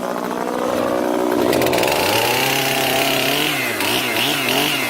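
Old Homelite two-stroke chainsaw running, its revs climbing about two seconds in and then held, with a few quick dips and rises near the end.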